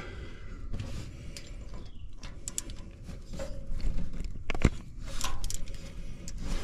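Scattered light clicks and metal knocks of a small hand tool working the screws of the engine's aluminum cover as they are snugged down by hand, with one sharper click about four and a half seconds in.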